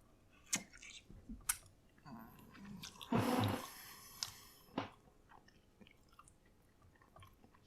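A person chewing a mouthful of breaded chicken close to the microphone, with a few sharp mouth clicks and a louder moment about three seconds in.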